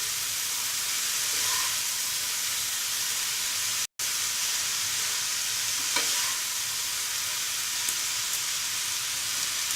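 Chowmein noodles and vegetables sizzling in hot oil in a kadhai as they are stirred and tossed, a steady frying hiss with a few light knocks of the stirring utensil. The sound drops out for a moment about four seconds in.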